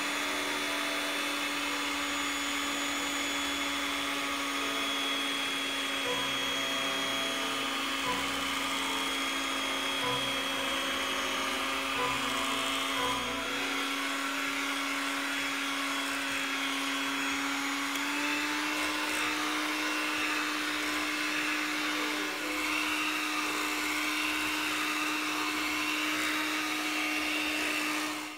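Electric hand mixer running steadily as its beaters whip egg whites into stiff snow. Its motor hum steps up slightly in pitch about two-thirds of the way through as the speed is raised while the whites thicken.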